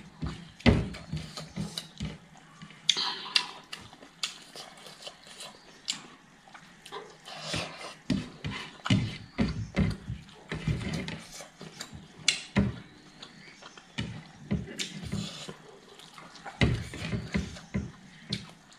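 Close-miked eating sounds: irregular wet lip smacks, chewing and finger-licking as fingertips wipe the last food off a ceramic plate.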